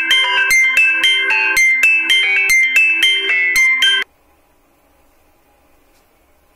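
Background music: a quick run of plucked notes, about five a second, that cuts off abruptly about four seconds in, leaving faint hiss.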